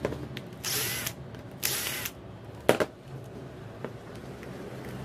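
Hard plastic casing of a cordless-drill battery pack being handled and worked open: two short rasping scrapes about half a second apart, then a single sharp click.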